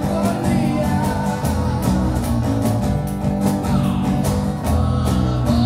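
Live acoustic band playing: strummed acoustic guitar chords with steady hand percussion and a singer's voice.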